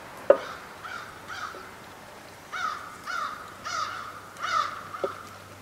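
A crow cawing repeatedly, a run of about six harsh caws coming faster through the second half. A sharp click about a third of a second in is the single loudest sound, with a softer click near the end.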